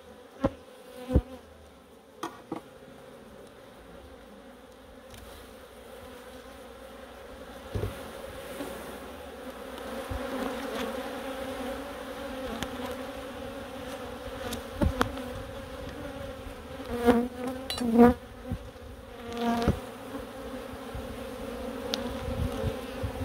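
Honeybee colony buzzing at an open hive: a steady hum that swells louder a few seconds in. Scattered sharp knocks and clicks from the wooden hive frames being handled, a few near the start and a cluster in the second half.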